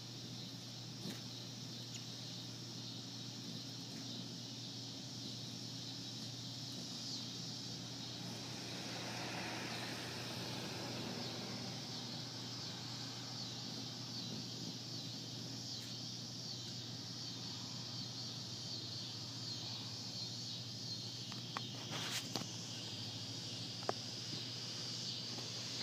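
Insect chorus: a steady high-pitched buzzing over a steady low hum. A broader wash of lower noise swells and fades around the middle, and a few sharp clicks come near the end.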